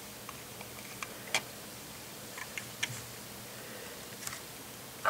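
Scattered light clicks and taps of plastic LEGO minifigures knocking against the bricks of a LEGO station wagon as they are pushed in through its roof, about half a dozen in a few seconds, the sharpest about a second and a half in.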